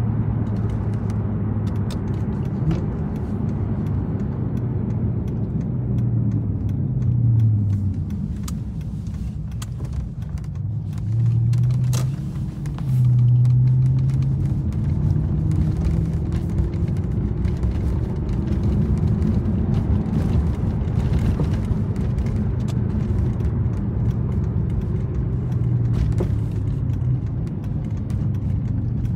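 Toyota Celsior's 4.3-litre V8 with an aftermarket Three Cats muffler, heard from inside the cabin while driving: a steady low exhaust drone over road noise. Its pitch rises and falls several times as the car speeds up and eases off, loudest near the middle.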